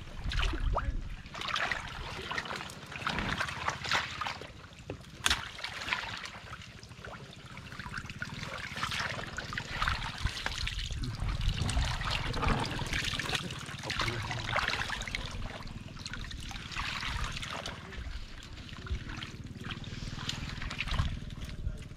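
Shallow water sloshing, trickling and splashing around legs wading through flooded mangrove mud, in irregular bursts, with a few sharp clicks from a hooked stick probing the mud.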